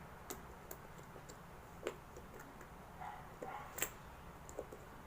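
Scattered light metallic clicks and taps of small motorcycle ignition-lock parts being handled and fitted back together. The sharpest clicks come a little before two seconds and near four seconds.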